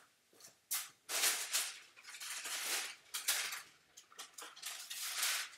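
A sheet of glassine paper being handled and laid over a drawing, rustling and sliding in irregular hissing bursts, with a few light taps before it.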